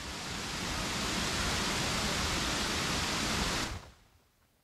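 A waterfall's steady rush of falling water, fading out near the end.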